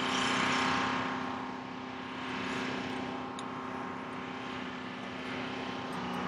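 A large crane's diesel engine running steadily at a low hum. A broad rushing noise swells and fades over the first second or so, with a smaller swell around two and a half seconds in.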